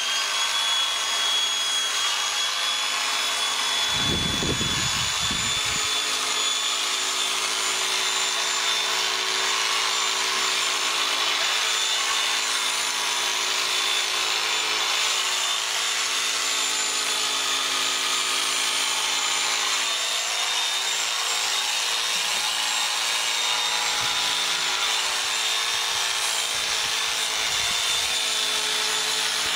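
Electric sheep-shearing clippers running steadily while shearing, with a steady high whine. There is a brief low bump about four seconds in.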